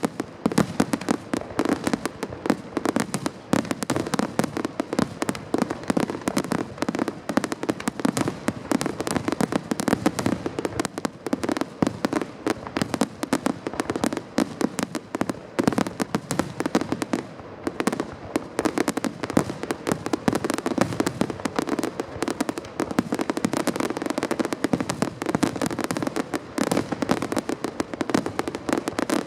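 Large display fireworks going off in a dense, continuous barrage of bangs and crackling with no pauses, the closing finale of the show.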